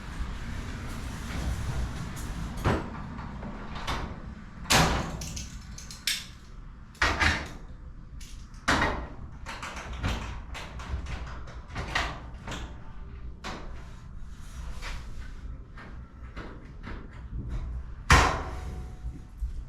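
Irregular metallic knocks and clanks over a low rumble, from a sectional garage door and its hardware. The loudest knock comes near the end.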